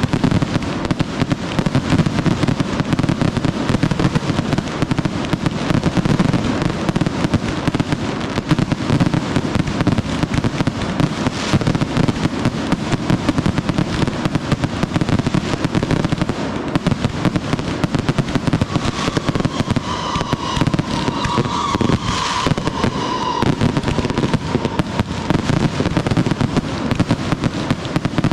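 Dense, continuous barrage of consumer fireworks: rapid overlapping bangs and crackles with no let-up. A held, high-pitched tone sounds over it for a few seconds about two-thirds of the way in.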